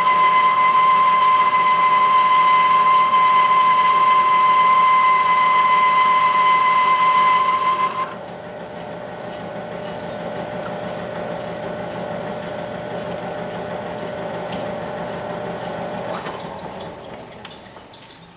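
South Bend 10-inch metal lathe running with a boring tool cutting inside the bore of a cast steel tractor governor arm: a loud, steady high whine for about eight seconds that cuts off suddenly. The lathe then runs on more quietly and winds down near the end.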